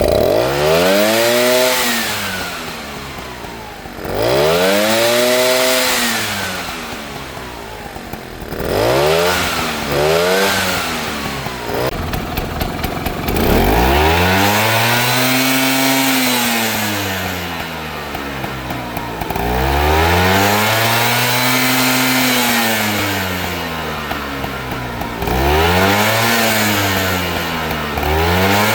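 Vespa SS180's single-cylinder two-stroke engine being blipped about seven times, each rev rising and falling back, some short and some held for a few seconds. Around twelve seconds in, between revs, a quick rattling clatter comes through at low speed, the rattle the owner takes for piston slap.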